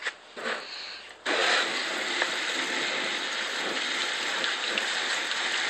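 Garden hose spray nozzle turned on about a second in, spraying water in a steady hiss against a car's side to rinse off spilled DEF fluid before it crystallizes.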